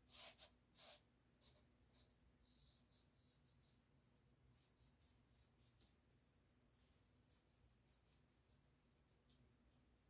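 Near silence with faint, scattered rubbing strokes, a little louder in the first second: a nitrile-gloved fingertip pushing wet acrylic paint across a canvas.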